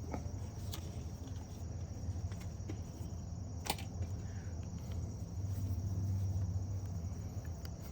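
Quiet outdoor background: a steady low hum with faint, steady insect chirring high up, and a single sharp click near the middle.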